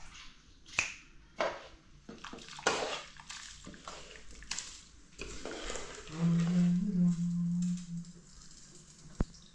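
Metal skimmer scraping and clinking against a metal cooking pan as cooked rice is scooped out, in a few separate strokes. Just past the middle comes a low, steady tone lasting about two seconds, the loudest sound here.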